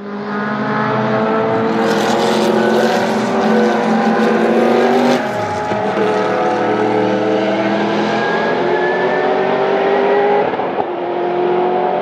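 Sauber Mercedes C11's twin-turbo V8 racing engine under hard acceleration. Its note climbs steadily in pitch, drops back sharply about halfway through, and does so again near the end, then climbs again.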